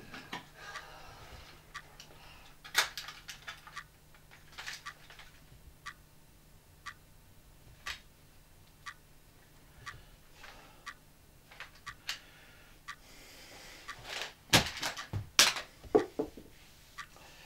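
Wall clock ticking steadily, about one tick a second, with louder knocks and rattles as the clock is handled, bunched together near the end.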